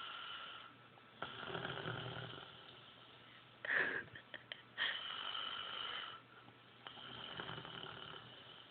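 Slow snoring of a sleeper, a drawn-out snore every two to three seconds, with a short louder noise about halfway through.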